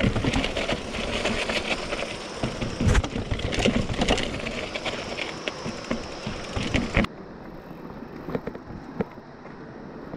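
Mountain bike rolling over rough, rocky trail: tyre noise with the bike rattling and knocking over the bumps. About seven seconds in it cuts off suddenly to a much quieter stretch with only a few faint clicks.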